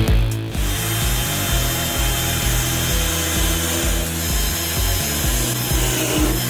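Chainsaw cutting steadily through wood, with background music underneath.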